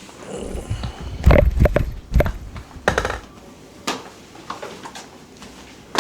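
A run of thumps and sharp knocks over low rumbling handling noise on a padded chiropractic treatment table, with about five distinct knocks in the first four seconds.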